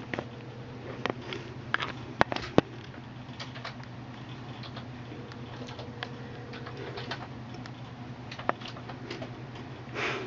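Office room tone: a steady low hum with scattered sharp clicks of computer keyboard typing, a few louder clicks about one and two seconds in.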